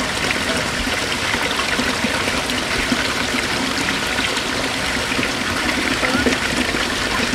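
Water trickling steadily, with light sloshing as hands move through a shallow plastic tub of water catching koi fry.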